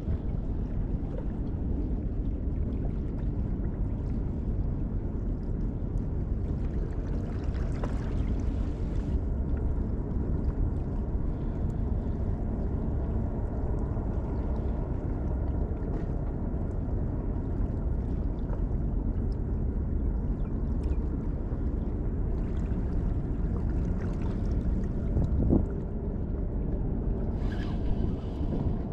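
Steady low rumble of wind on the microphone over harbour water washing against the rocks. Near the end comes a brief rustle as the fishing rod is picked up and handled.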